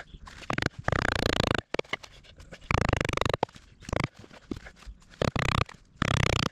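Large chisel being driven with a wooden mallet and levered in a mortise in a larch beam: a series of knocks and rasping scrapes, several lasting about half a second, as wood chips are split and pried out.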